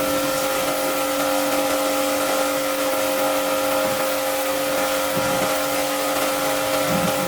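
Motorised cleaning machine running steadily: a constant motor hum with several fixed tones under an even hiss.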